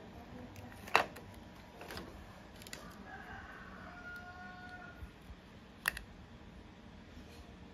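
Clicks and light knocks of a plastic HDMI plug and a DisplayPort-to-HDMI adapter being handled, the sharpest about a second in and near six seconds in. Between about three and five seconds a rooster crows faintly.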